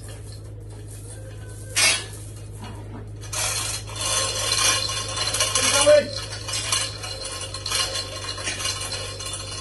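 Chain hoist's hand chain clinking and rattling steadily as it is hauled, after a single sharp metallic knock about two seconds in. A low steady hum runs underneath.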